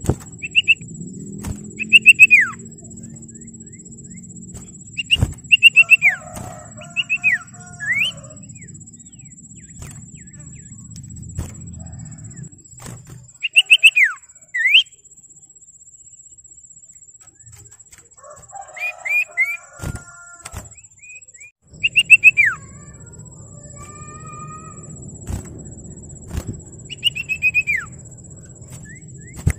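Common iora (sirtu/cipoh) in full song: loud clusters of three or four sharp whistled notes, the last sliding steeply downward, repeated every few seconds, with softer warbling phrases between. A faint steady high whine runs underneath.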